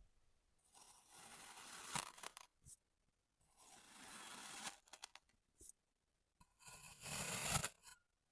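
Kinetic sand being cut in three strokes, each a gritty scraping hiss lasting a second or two, with a short click near the end of the first and last cuts.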